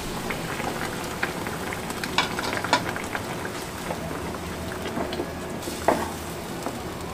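Pea and makhana curry sizzling and bubbling in a nonstick pan just after hot water is added. A spatula stirs through it, with scattered scrapes and clicks against the pan.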